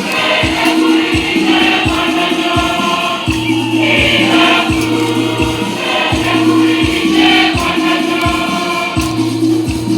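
Church choir singing a gospel hymn over a steady drum beat of about two beats a second and a held low accompaniment note.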